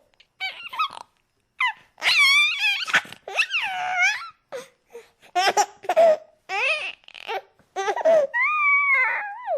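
A baby laughing in a string of short, high-pitched bursts with wavering pitch, broken by brief pauses for breath.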